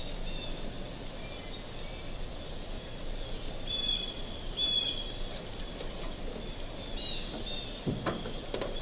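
Birds calling: short, high chirps come and go, the clearest two about four seconds in and two more about seven seconds in, over a steady outdoor background.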